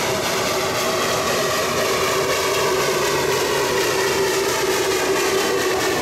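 760 mm narrow-gauge steam locomotive running past close by, with a loud, steady rush of steam and exhaust over the noise of its running gear.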